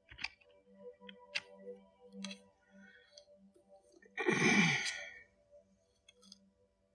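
A few sharp clicks, then a loud breathy sigh about four seconds in, over a faint steady background tone.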